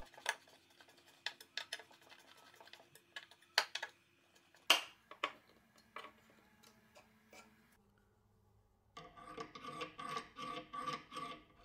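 A hand screwdriver driving a screw into an old wooden board: faint scattered clicks of the bit and tool handling, then, about nine seconds in, a rhythmic rasping rub with a faint tone in it as the screw is turned in.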